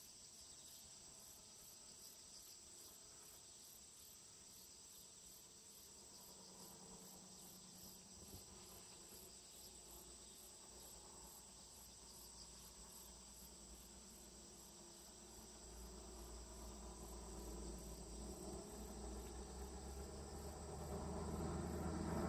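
Faint insect chirping, crickets: a steady high trill with a regular pulse. A low rumble swells over the last several seconds.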